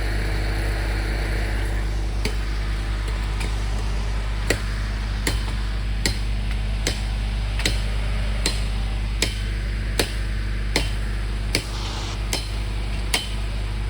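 Steady chopping strokes, about one every three-quarters of a second, starting a couple of seconds in: a blade being swung into hurricane debris to clear a blocked road. A steady low hum runs underneath.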